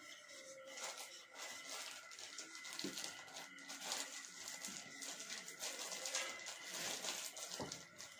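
Marker pen writing on a whiteboard: irregular short scratching strokes as the letters are drawn.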